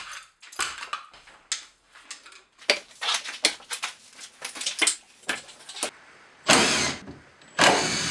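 Old plastic conduit, outlets and wiring are pulled off a brick wall and down from ceiling beams, making a run of sharp clicks, knocks and rattles. Near the end, a cordless drill runs in two short bursts, backing out the screws of an old globe light fixture.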